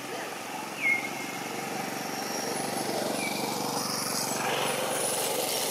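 A baby monkey gives short, high squeaks that fall in pitch, one about a second in and a fainter one past the middle. Under them runs a steady engine-like drone that swells after about two seconds.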